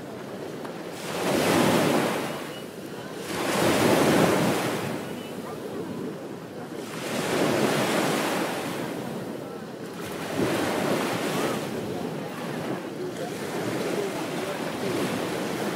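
Ocean waves breaking on a beach. About five surges of surf each swell up and fall away over a second or two, over a steady wash in between.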